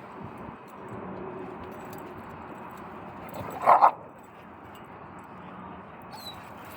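A dog barks once, short and loud, a little past halfway, over steady low background noise.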